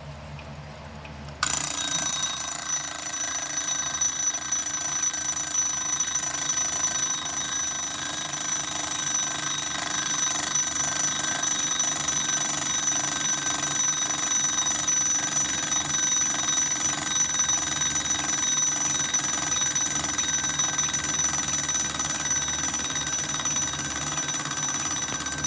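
Wind-up alarm clock's bell ringing, its hammer striking rapidly and evenly; it starts suddenly about a second and a half in and keeps ringing without a break.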